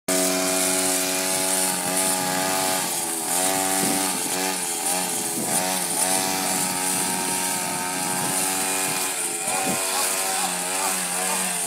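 Two-stroke petrol string trimmer running, its engine pitch dipping and rising again and again as the throttle is worked and the line cuts grass, with steadier stretches between.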